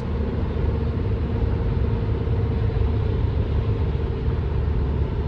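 Steady road and engine noise inside a moving Acura TL's cabin: a low, even rumble with a faint steady hum.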